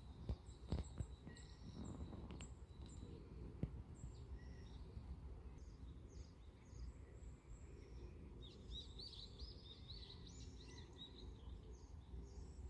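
Wild birds calling with short high chirps, with a quick run of chirps about two-thirds of the way through, over a low steady outdoor rumble. A few sharp knocks come in the first few seconds.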